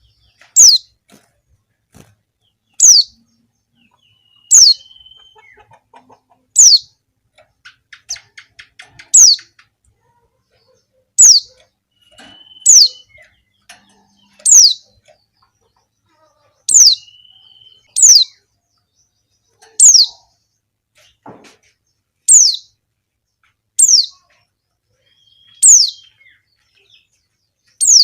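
Female white-eye (pleci) giving short, high call notes that slide downward, one about every two seconds. This is the call a female uses to draw males. A faint rapid chatter comes in about a third of the way through.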